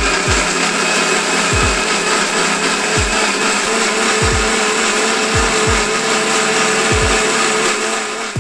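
Electric blender motor running at full speed, grinding momo chutney in its jar into a paste: a loud, steady whirring that cuts off near the end.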